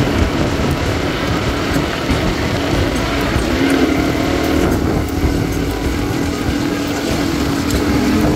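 Off-road buggy engine running steadily while driving over a rough dirt track, with the low rumble of the ride underneath.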